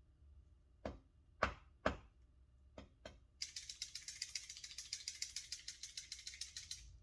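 A few sharp metallic knocks, then about three and a half seconds of fast, even rattling.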